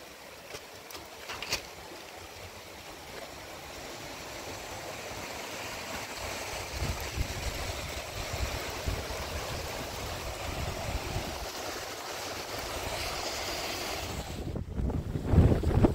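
Steady rushing of rain and wind, growing gradually louder, with wind gusting on the microphone near the end.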